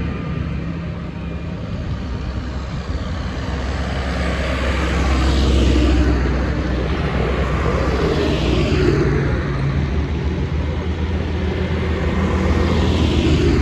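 Diesel engines of large farm tractors, John Deeres among them, running as they drive past one after another on a wet road, with tyre noise on the wet tarmac. The sound swells as each tractor passes, about six seconds in and again near the end.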